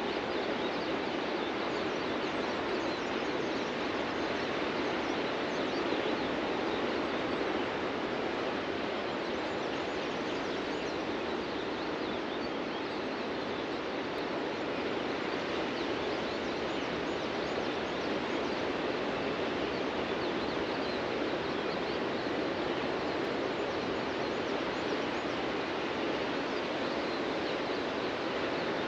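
Ocean surf breaking on a beach: a steady, continuous wash of waves with no single break standing out.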